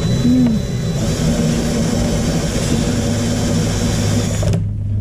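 Cordless drill driving a VEVOR wire-stripping machine, spinning its rollers and blade as wire is fed through to strip the insulation off the copper. It winds up in pitch at the start, runs steadily, then cuts off suddenly about four and a half seconds in.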